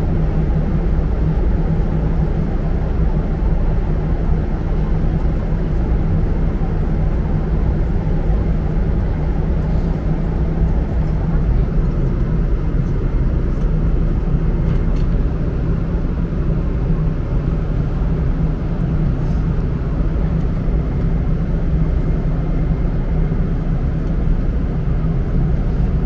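Steady low cabin noise of a jet airliner in cruise, with a few faint crinkles of a plastic bag about halfway through.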